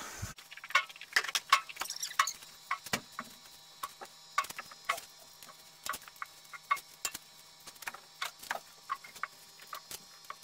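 Mucking out a horse stall with a manure fork: irregular light clicks, taps and scrapes of the fork on the stall floor and bedding, about two or three a second.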